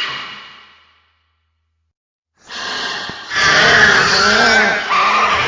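Monster roar sound effect built from Kaiser Ghidorah's roars: one roar fades out in the first second, then after a short silence a second, louder roar with a wavering pitch starts about two and a half seconds in.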